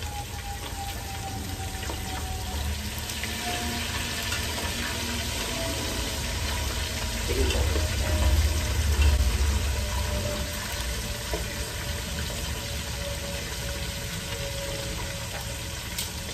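Fish frying in hot oil in a pot, a steady sizzle with popping oil. A low rumble swells near the middle.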